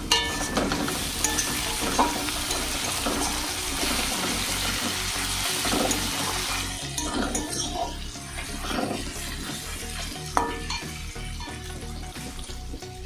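Sliced onions frying in hot oil in a kadai, sizzling as a spatula stirs them, with scattered clicks and scrapes of the spatula against the pan. The sizzle is strongest for the first several seconds and dies down after about seven seconds.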